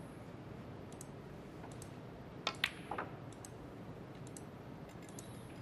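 Snooker balls clicking: a cue striking the cue ball and balls knocking together, in a tight cluster of sharp clicks about two and a half seconds in, with a few fainter single clicks elsewhere over a low arena hush.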